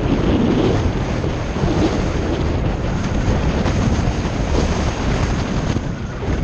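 Wind rushing and buffeting over the microphone of a moving motorcycle, a loud, unsteady rush with no clear engine note.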